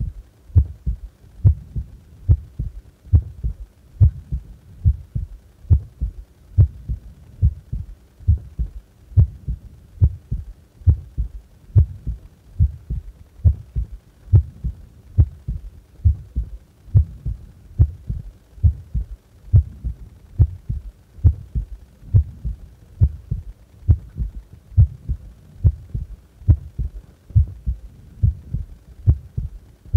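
A human heart at rest, beating steadily: paired lub-dub thuds at about one pair a second.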